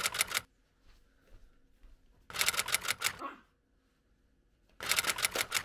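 Three short bursts of rapid, sharp clicking, about five clicks in each burst, with quiet between them.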